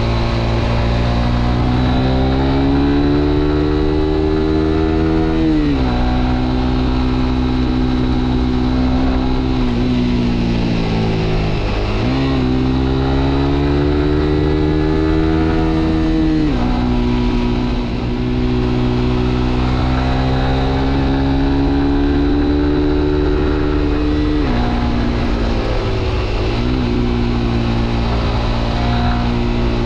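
Suzuki GSX-R125's single-cylinder engine pulling on the road. Its pitch climbs steadily and drops sharply at each gear change, several times, and it eases off and picks up again once near the middle.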